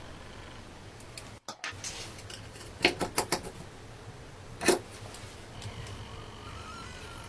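A handful of sharp clicks and taps over a steady low hum: a quick cluster about three seconds in and one louder click near five seconds.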